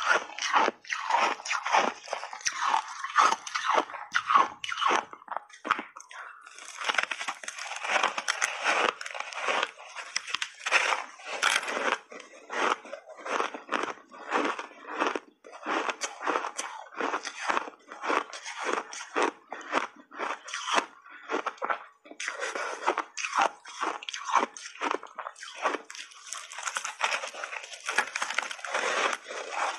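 Close-miked biting and chewing of refrozen ice chunks coated in matcha and milk powder: rapid, irregular crunches, with a short lighter spell about five seconds in.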